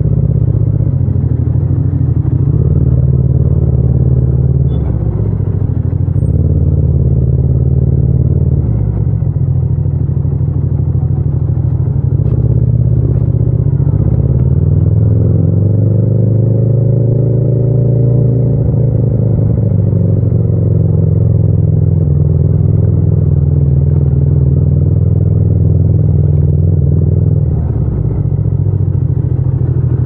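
Yamaha MT-07's parallel-twin engine running at low revs as the bike rolls slowly in first gear, the revs rising and easing off around the middle. Raw engine sound with no wind noise.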